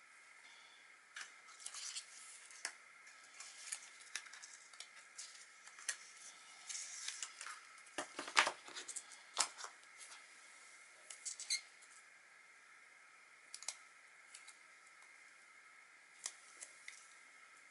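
Light handling of an Apple Pencil and its cardboard packaging insert: scattered soft taps, clicks and rustles of card and plastic, with a couple of sharper clicks about eight and nine seconds in.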